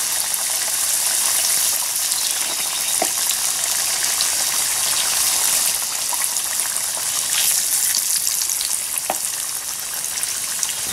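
Breaded zucchini slices frying in hot grease in a camp skillet: a steady sizzle, with a couple of light clicks.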